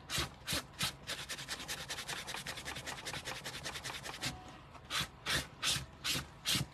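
A small damp white pad scrubbed back and forth on the vachetta leather handle strap of a Louis Vuitton Keepall 45, to clean off grime, with a rasping sound like sanding. A few separate strokes, then a quick run of rapid rubbing from about one to four seconds in, then separate strokes again near the end.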